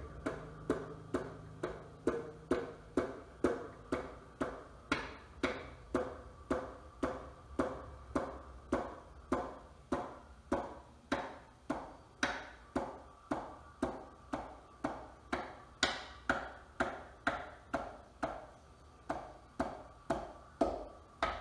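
Light, even taps of a hammer's rubber handle on the piston top, about two a second, driving a piston through a ring compressor into a small-block Chevy cylinder bore a little at a time.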